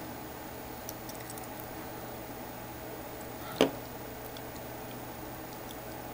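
Low steady room hiss with a faint hum. A single sharp click comes about three and a half seconds in, with a few faint ticks around it, from the iPod Touch being handled as it is put into DFU mode.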